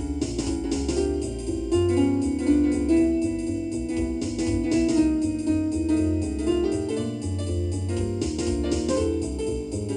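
Jazz played on a keyboard: sustained chords over moving low notes, with continuous short, crisp strikes.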